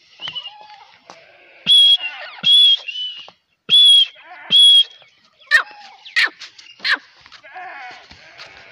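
Grey francolin calling: four loud, harsh, high-pitched notes in two pairs, followed by three short sharp calls.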